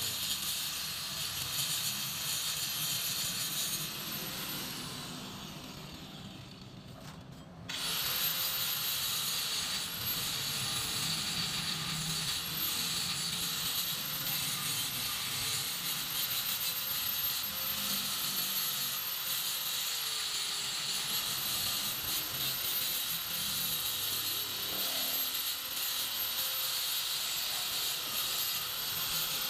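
Handheld power tool running against the motorcycle frame, its whine dipping in pitch as it bites. It winds down about four seconds in and starts again abruptly near eight seconds.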